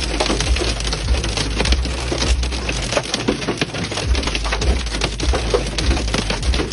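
Hail pelting a car's roof and windshield, heard from inside the cabin: a loud, continuous clatter of dense hard impacts.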